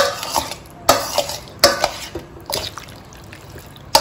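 Marinated chicken pieces being mixed in a stainless steel bowl, with the bowl knocking and clattering about five times, each knock ringing briefly.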